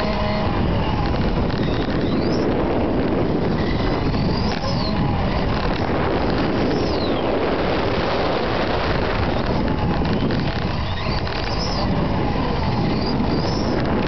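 Radio-controlled model car driving fast across asphalt, heard from a camera on board: a steady rush of wind and rolling noise, with a faint high motor whine that rises and falls several times as it speeds up and slows.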